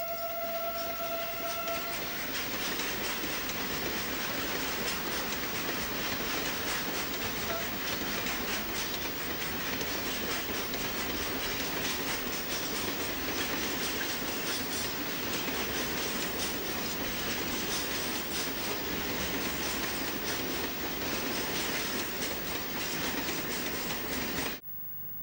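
Freight train of hopper wagons rolling past: steady wheel and rail noise with the clickety-clack of wheels over rail joints. A steady high whistling tone sounds over it until about two seconds in. The sound cuts off abruptly near the end.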